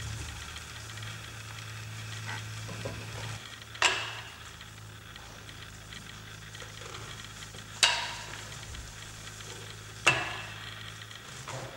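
Three sharp metallic clicks, each with a brief ring, against a faint low hum that stops about three and a half seconds in.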